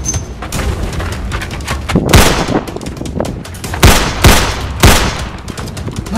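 Four pistol shots: one about two seconds in, then three in quicker succession about a second later, each with a short trailing ring-out.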